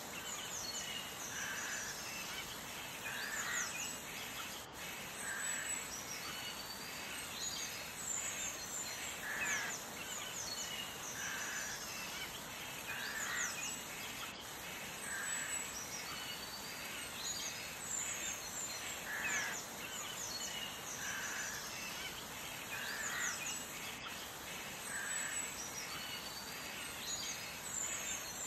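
Birds chirping over a steady background hiss, with a lower call repeating about every two seconds.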